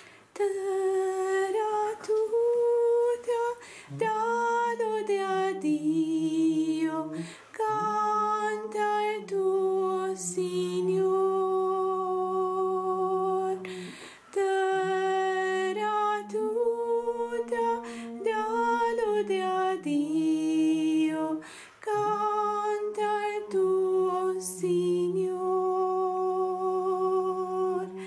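A slow hymn: voices singing long-held notes in harmony, two parts moving together, with short breaths between phrases.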